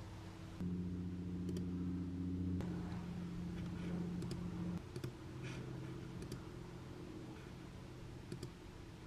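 Soft single clicks on a laptop, about eight spread out, as a file is chosen and an assignment submitted, over a low steady hum that is louder for the first few seconds.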